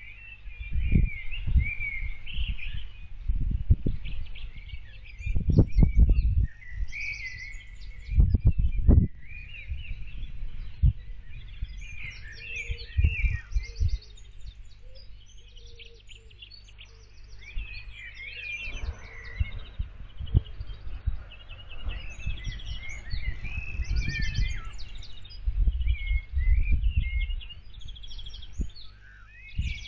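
Small birds chirping and singing throughout, with repeated low rumbling thumps that come and go and are the loudest sounds.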